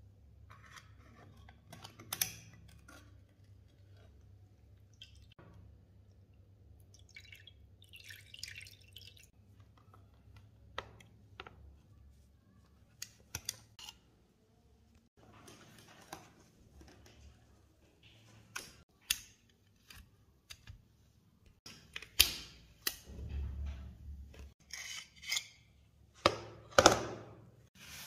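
Metal pistol parts and tools handled in a glass tray of liquid: scattered small clicks, taps and drips, with a run of louder sharp knocks and rubbing in the last six seconds or so.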